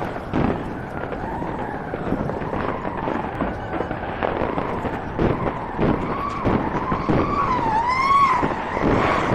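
Fireworks going off: a run of bangs and crackles. A high wavering tone rises and falls over the last few seconds.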